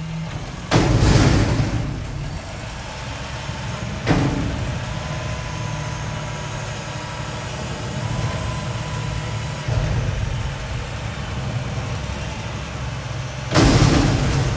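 Garbage truck engine running steadily while a dumpster is dumped. A loud bang comes about a second in and another near the end, with a sharper knock around four seconds and a thin steady whine through the middle.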